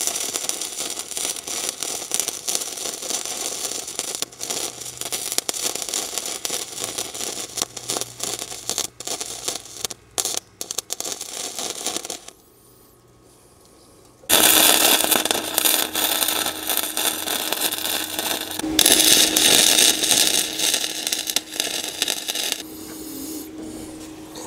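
Electric arc welding on a motorcycle sidecar: a steady crackling arc for about twelve seconds, a pause of about two seconds, then a second weld of about eight seconds with a steady hum under the crackle.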